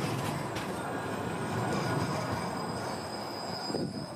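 Metrolink tram running on street track, with a thin, high-pitched wheel squeal over a steady rumble from about a second and a half in until near the end.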